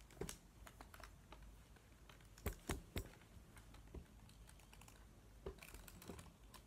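Faint scattered clicks and light taps of hard jointed doll parts being handled and posed. Three come close together around two and a half to three seconds in.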